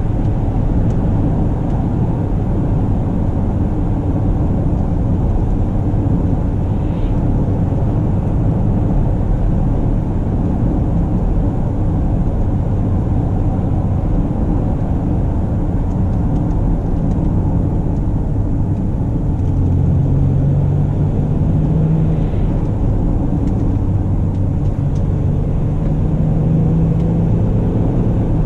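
Mercedes-Benz GLE Coupe being driven: a steady low rumble of engine and road noise, with the engine hum growing stronger about two-thirds of the way through and again near the end.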